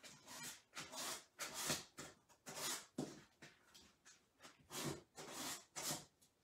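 Faint, scratchy rubbing strokes, irregularly spaced with short pauses: a small sanding block and then bare hands rubbing over scrapbook paper glued onto a wooden block.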